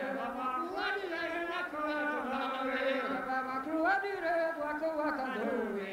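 Two men singing unaccompanied kan ha diskan, traditional Breton call-and-response song, in a steady run of held and gliding notes.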